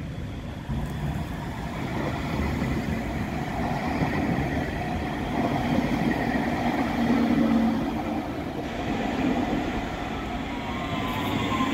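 KVB Stadtbahn light-rail train rolling past close by, its wheels rumbling and humming on the rails. The sound builds to a peak about seven seconds in, then eases. A falling whine starts near the end.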